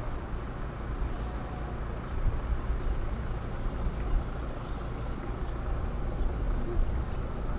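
Wind buffeting the microphone outdoors, a steady uneven low rumble with irregular gusty peaks. Faint high chirps come twice, in short runs of three.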